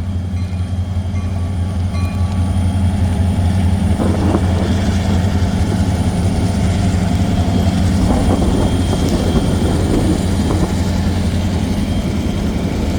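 A freight train's diesel-electric locomotives, an SD40-2 and a GP38, rumbling past close by with a steady low engine drone. About four seconds in a rougher rushing noise joins it.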